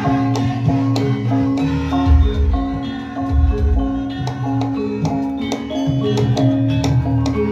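Javanese gamelan-style music: mallet-struck metal notes repeating over a steady drone, with heavy drum beats about two to three and a half seconds in.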